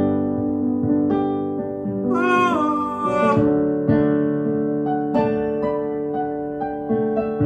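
Instrumental music: plucked acoustic guitar notes over sustained keyboard tones, with a short wavering high note about two seconds in.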